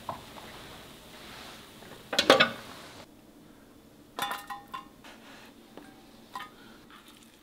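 Kitchen utensil clatter: a loud clatter about two seconds in, then a spoon scraping and clinking against a stainless steel container and pan as stir-fried potatoes are scooped across, several clinks ringing briefly.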